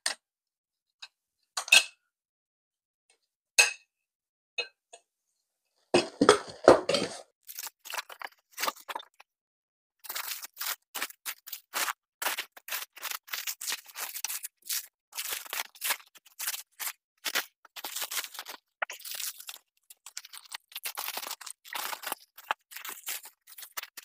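A few scattered clinks of steel armour plate being handled and set down, then from about seven seconds in a dense, continuous crackling of layered plastic wrap being pulled and torn off a wrapped armour piece.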